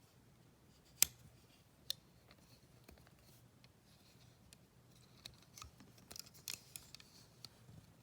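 Metal clicks and scrapes of a multitool's pliers and blades being opened and closed by hand: a sharp click about a second in, a smaller one just before two seconds, then a run of small clicks and scrapes from about five seconds on.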